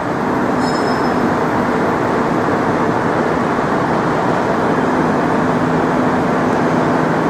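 Loud, steady mechanical rumble with a constant low hum running under it, like a large machine or heavy vehicle running close by.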